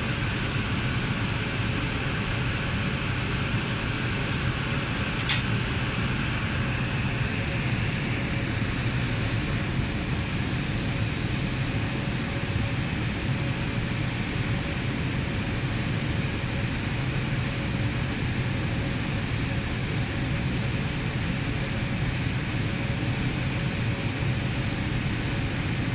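Steady whooshing noise of cooling fans and air conditioning, with a low hum under it. A single sharp click about five seconds in.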